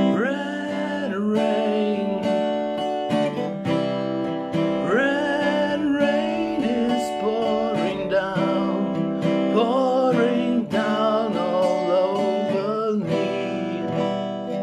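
Acoustic guitar strummed in steady chords, with a man singing in several phrases over it.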